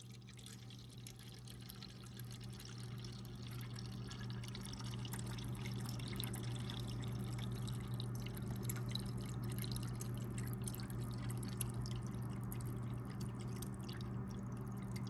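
Frigidaire refrigerator's door water dispenser running a stream of water into a cup, the stream getting louder over the first few seconds and then steady, over a steady low hum.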